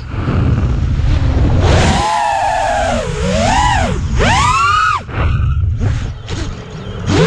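FPV quadcopter's brushless motors whining, the pitch sweeping up and down with the throttle over wind rumble on the onboard camera's microphone. In the second half there are a few short throttle blips.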